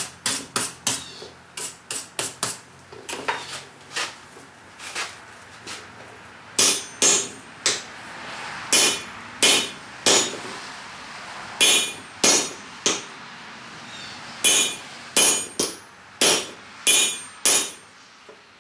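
Hand hammer forging a hot steel ball-peen hammer head over the rounded groove of a swage block, shaping a radius into the scraper's end. Quick, light blows come at about three a second at first. From about six seconds in, heavier blows follow about every half second to second, each with a metallic ring.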